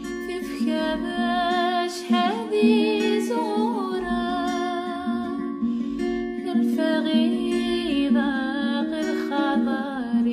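Background music: a melody with vibrato over steady sustained chords.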